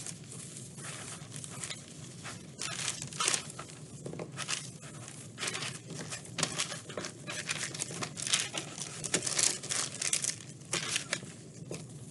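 Irregular crinkling and rustling as gloved hands roll sticky clay pieces around in gold leaf on a sheet of paper, the paper crumpling under the hands, with louder bursts of rustling around the middle and toward the end.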